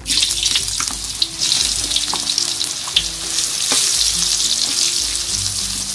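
Rice-flour-coated eggplant pieces dropping into hot oil in a wok, the oil breaking into a loud, steady sizzle that starts suddenly. A few short clicks come as pieces land and are moved in the pan.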